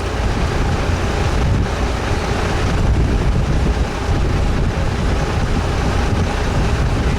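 Fishing boat's engine running steadily under way, with wind buffeting the microphone and water rushing past the hull.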